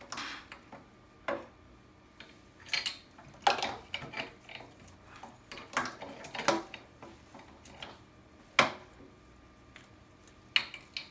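Irregular light clicks and knocks of plastic tubing and fittings being handled and fitted into the instrument's flow sensors, a dozen or so spread unevenly, the sharpest a little past the middle.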